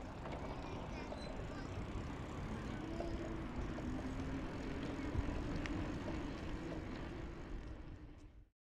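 Wind rumbling on the microphone of a moving bicycle, with tyres rolling on a paved path and one sharp knock about five seconds in. The sound cuts off abruptly near the end.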